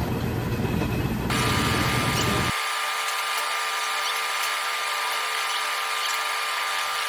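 Milling machine running with a steady high motor whine that starts about a second in. A low rumble under it cuts off abruptly a couple of seconds in.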